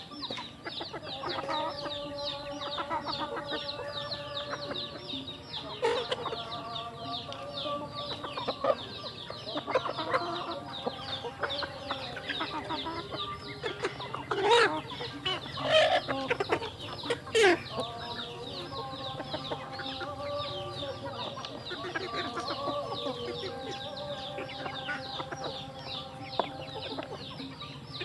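Flock of chickens clucking and calling as they feed, over a constant fast, high ticking. Three louder calls stand out about halfway through.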